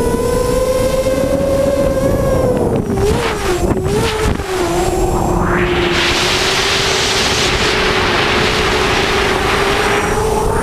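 Six Cobra CM2208 2000kv brushless motors spinning 6-inch props on a racing hexacopter, a steady buzzing whine whose pitch wobbles and dips about three to four seconds in as the throttle changes. From about five seconds in, a loud rush of wind over the onboard camera's microphone joins the motor whine, which holds at a lower pitch as the craft dives toward the field.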